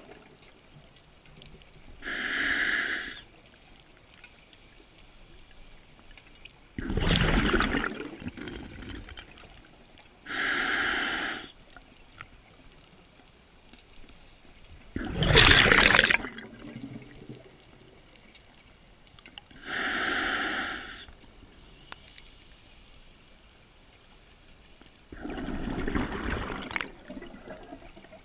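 Scuba diver breathing through a regulator underwater, slow and even: a short hissing inhale through the demand valve, then a louder bubbling rush of exhaled bubbles a few seconds later, three full breaths about every eight to nine seconds.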